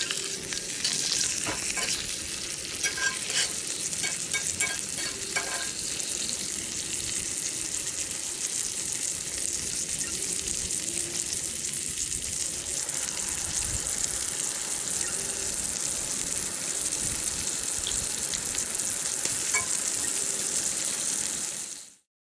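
Wagyu steak sizzling as it sears over a campfire: a steady hiss with scattered crackles that cuts off abruptly near the end.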